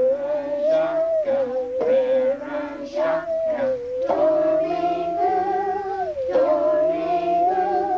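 Musical saw playing a single sustained tone with a wide wavering vibrato, sliding slowly up and down through a melody, while children sing along.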